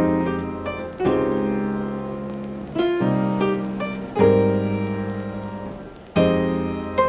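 Background piano music: slow chords struck every second or two, each ringing on and slowly fading, with lighter single notes between them.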